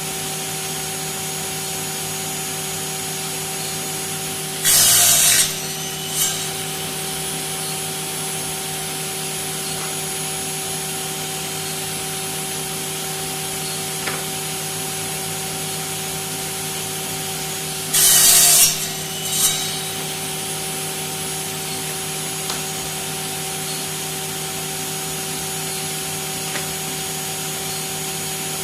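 Homemade twin-blade power saw running with a steady motor hum, making two cuts about 13 seconds apart: each a loud rasp lasting under a second, followed by a brief smaller one.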